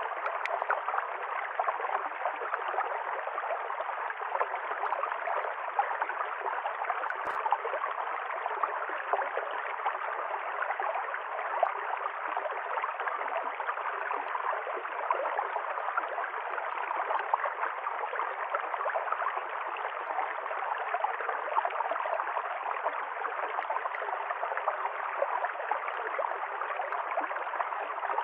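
River stream running, a steady rush of flowing water with fine splashing and gurgling.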